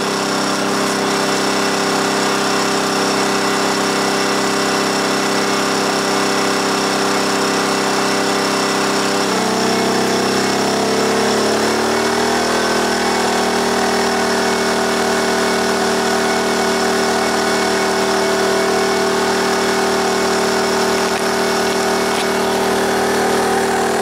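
Predator 2000-watt inverter generator's single-cylinder four-stroke engine running steadily under a microwave load. About nine seconds in, its engine speed climbs over a few seconds and settles at a higher steady pitch as the inverter throttles up for the space heater's added load.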